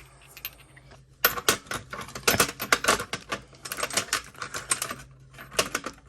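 Steel sockets clicking and clinking as they are laid back into a socket set case: a quick, uneven run of small metal clicks starting about a second in.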